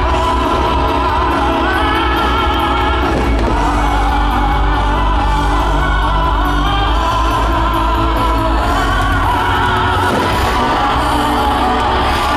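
Fireworks-show soundtrack music with singing voices, played loud and steady.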